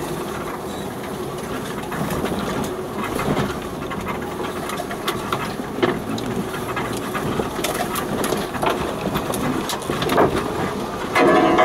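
Off-road 4x4 crawling along a rough, overgrown track, heard from inside the cab: steady engine and running-gear noise with scattered knocks and clicks from the suspension and bodywork. Just before the end a louder bell-like ringing with several tones starts.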